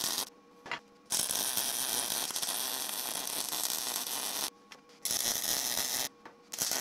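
Wire-feed (MIG) welder arc crackling steadily while plug welding steel, in four runs that start and stop abruptly: a short one at the start, a long one of about three and a half seconds, then two shorter ones with brief pauses between.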